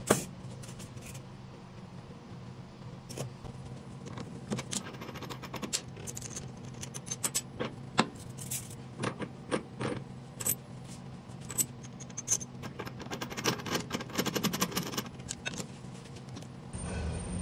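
Metal clinks, knocks and scrapes of a spindle shaper's cutter, collars and spindle nut being taken off and fitted by hand, some strikes ringing briefly.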